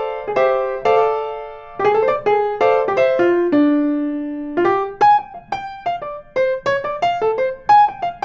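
Keyboard music: a melody of single struck piano-like notes that ring and fade, with one low note held for about a second in the middle.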